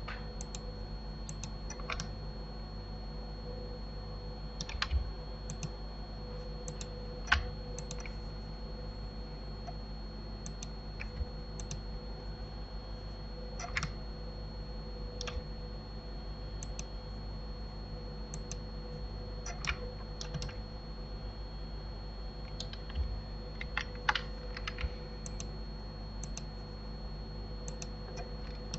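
Scattered, irregular clicks of a computer keyboard and mouse, a few at a time with gaps between, over a steady background hum.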